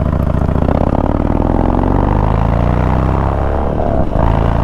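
Harley-Davidson Dyna Street Bob's Twin Cam V-twin pulling under acceleration on the road, its pitch climbing steadily, with a short break in the sound near the end before it runs on.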